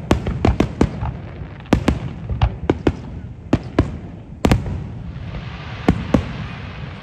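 Aerial fireworks display: a quick, irregular run of shell bursts and bangs, the loudest about four and a half seconds in. A steady hiss sits behind the last few bangs near the end.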